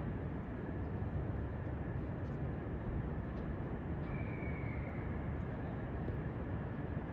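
Steady low rumble of distant city and rail traffic over a rail yard, with a brief faint high whine about four seconds in.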